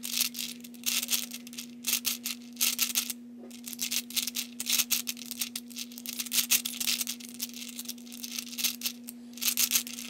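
Plastic balls of a Hungarian Rings puzzle clicking and rattling in their tracks as the rings are turned, in short runs of clicks with brief pauses between them.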